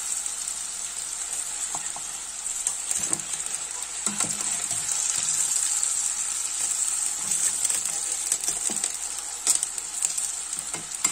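Breaded chicken pieces deep-frying in hot oil, a steady sizzle, as the golden-brown pieces are lifted out. A few clicks of a metal mesh strainer and spoon against the pot.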